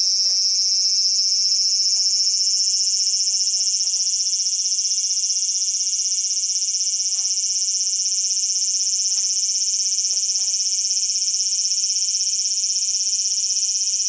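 A large brown cicada (aburazemi) shrilling continuously: one loud, unbroken high-pitched buzz that rises slightly in pitch over the first few seconds and then holds steady.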